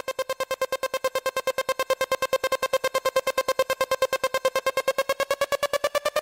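Background electronic music: a synthesizer tone pulsing rapidly, about ten pulses a second, that begins to rise in pitch near the end.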